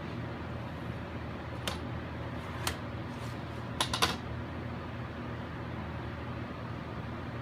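A few sharp light clicks of a steel rule and marking tool on sheet metal being marked out, the last two close together about four seconds in, over a steady background hum.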